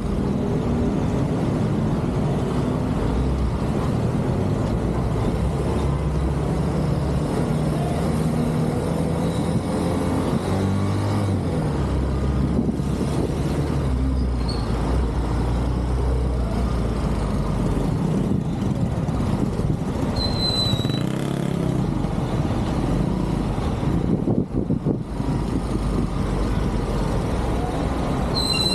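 Motorcycle engine running while riding in city traffic, its pitch rising and falling with the throttle, with the noise of surrounding cars. Short high squeals come twice, a little past the middle and near the end.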